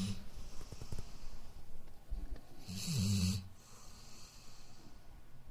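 Black Labrador snoring while awake with her eyes open: one full snore about halfway through, with the end of another right at the start, each a low rattling drone over a hissing breath.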